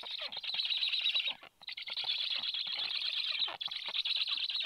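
Black stork chicks calling on the nest: a fast, continuous run of repeated notes, breaking off briefly twice.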